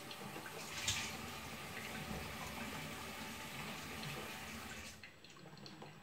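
Electric drip coffee maker brewing: hot water bubbling and dripping through into the glass carafe, with a sharp click about a second in. The sound drops quieter about five seconds in.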